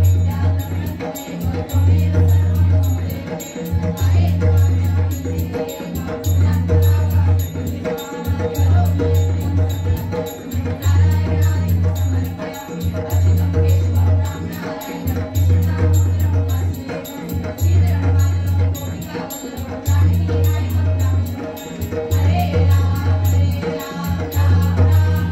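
Live Marathi devotional aarti: group voices singing to harmonium, with tabla and a two-headed barrel drum keeping a driving, repeating rhythm.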